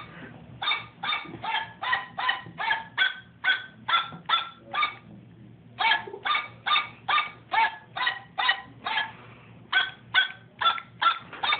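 A tune played in short electronic dog barks, about three yaps a second, each at a different pitch, in three phrases with short pauses between.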